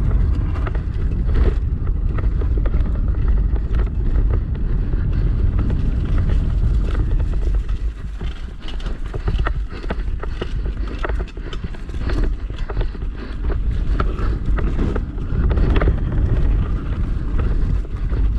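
Wind rushing over the microphone of a downhill mountain bike riding fast, with the bike rattling and knocking over bumps in many short, sharp clicks.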